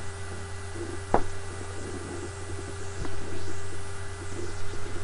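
Steady low electrical hum and hiss of background noise with a faint constant tone, broken by a single sharp click about a second in and a fainter one about three seconds in.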